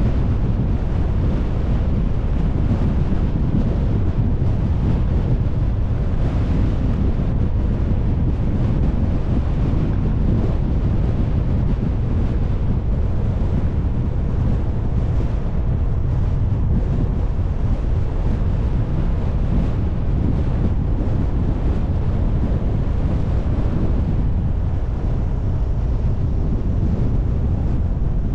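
Steady low rumble of a vehicle driving: road and wind noise buffeting the microphone, with no distinct engine note or other events.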